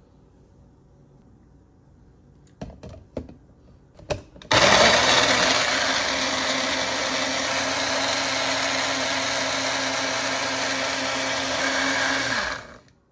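Magic Bullet Mini personal blender: a few clicks and knocks as the cup is set onto the base, then the motor runs steadily for about eight seconds, blending aloe gel cubes in liquid, and cuts off.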